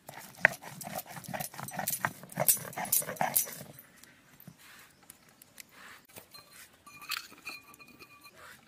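Stone roller grinding spices on a flat stone slab (sil-batta), a dense run of crunching, scraping strokes that stops a little before halfway; after that only faint scrapes.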